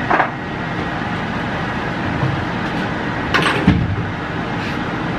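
Steady fan-like background noise, broken by a short clatter just after the start and a short knock with a low thump about three and a half seconds in.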